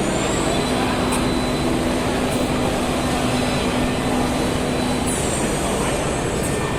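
Steady din of a machine-tool trade-fair hall: running machinery mixed with crowd chatter, and a faint steady hum that stops about five seconds in.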